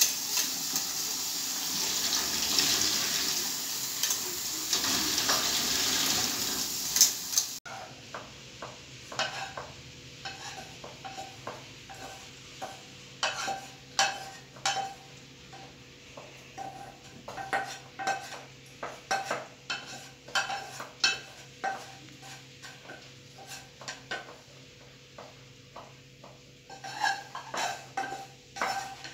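Kitchen tap water running into a steel pot for about the first seven seconds, stopping abruptly. Then comes a long run of irregular clinks and scrapes of a spoon against a metal frying pan as its contents are scraped out into a bowl.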